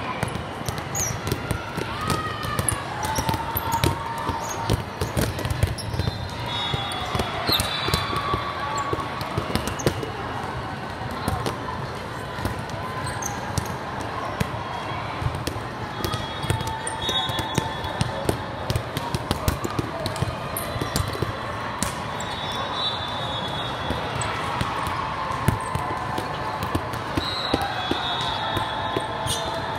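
Volleyball hall: balls being hit and bouncing again and again, sneakers squeaking, and the chatter of players and spectators, with a few short high whistle-like tones.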